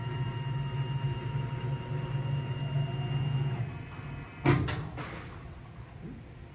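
Tormach PCNC 1100 Series 3 CNC mill's X axis being jogged: a steady motor hum with a thin whine that stops about three and a half seconds in, then a sharp clunk about a second later.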